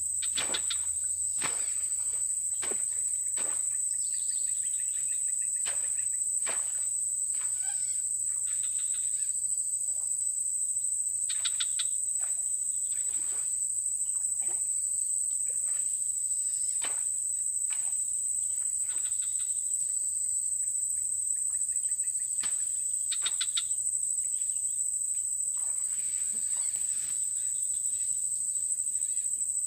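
Insects droning in a steady, high, unbroken tone, with scattered sharp clicks and occasional short chirping calls.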